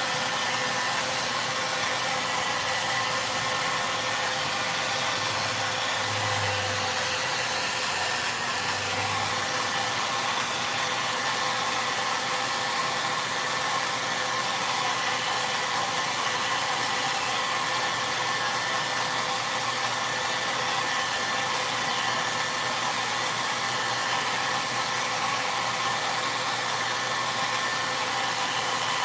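VONE hair dryer running steadily: a constant rush of air with a faint steady motor whine.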